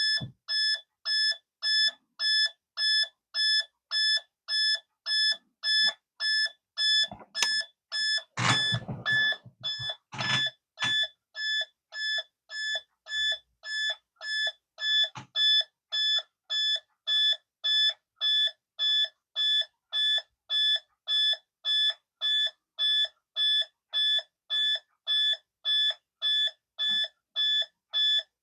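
Speaker on a Radio Shack 200-in-One electronic project kit beeping from its SOS alert circuit, which is built on 7400 and 7476 logic chips: an even string of high-pitched electronic beeps, about three every two seconds. A brief burst of handling noise comes about eight to ten seconds in.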